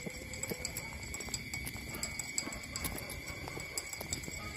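Three-week-old puppy suckling at its mother's teat: quick, irregular wet clicks and smacks, with a faint steady high whine underneath.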